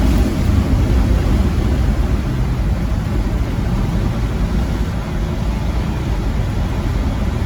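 Twin-turbo LS V8 pickup under way: steady engine, exhaust and road rumble heard from the truck.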